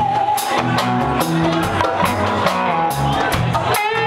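Live rock band playing: drum kit beating a steady rhythm under bass and electric guitar.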